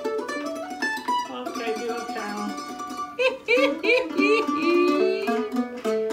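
F-style mandolin being played with a pick: a quick melody of plucked notes. From about three seconds in, a voice sounds over the playing.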